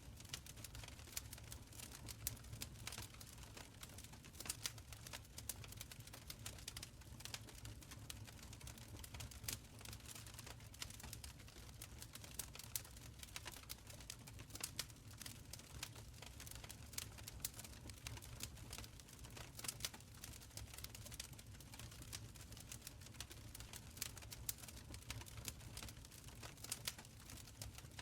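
Wood fire burning in a stone fireplace: a steady low rumble of flames with dense, irregular crackles and small pops throughout.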